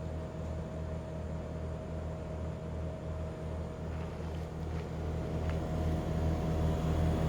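Daikin Altherma heat pump buzzing: a steady low hum that throbs in a regular pulse, with a fainter steady higher tone above it, growing a little louder over the last couple of seconds. A few faint ticks sound around the middle.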